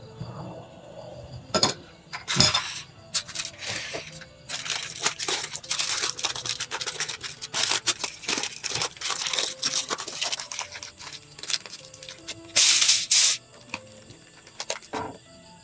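Aluminium foil crinkling and crackling as it is folded and crimped by hand into a parcel around a fish. It comes in irregular crackles, near-continuous through the middle, with loud bursts about one and a half and two and a half seconds in and again near the end.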